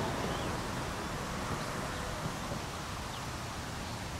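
Steady outdoor background noise, a low rushing hiss like wind and distant rustle, with a few faint short chirps high above it.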